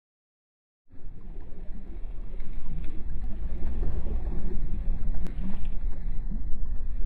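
Small waves washing on the shore, with wind rumbling on the microphone; the sound starts after about a second of silence.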